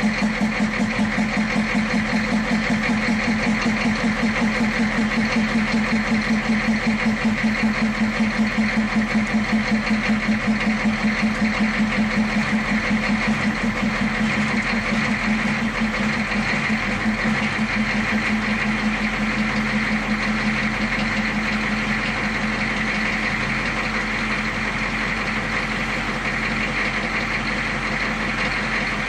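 1984 Chevrolet C20's 6.2-litre V8 diesel idling steadily, with a regular pulsing beat that evens out about halfway through.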